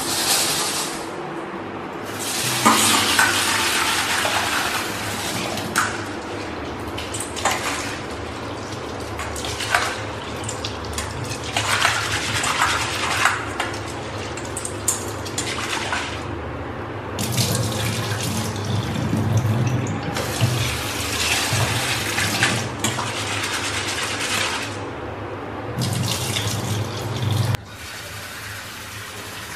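Water running from a kitchen tap into a steel bowl of red lentils, splashing as the lentils are swirled by hand and rinsed, and as the water is poured off into the sink. The water sound comes and goes in spells of a few seconds.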